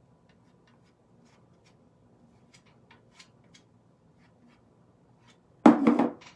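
Faint, scattered light scrapes and ticks of a palette knife spreading paste over a stencil on a pitcher. Near the end comes one loud, brief clunk and clatter as the pitcher is set down on the tabletop.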